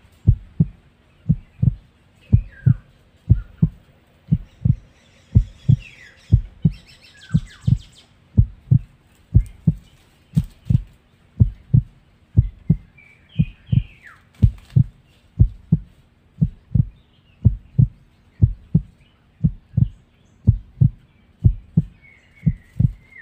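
Heartbeat sound effect: low thumps in a steady beat, about two a second. Birds chirp faintly now and then in short falling notes, and a fast high ticking trill runs for a few seconds about five seconds in.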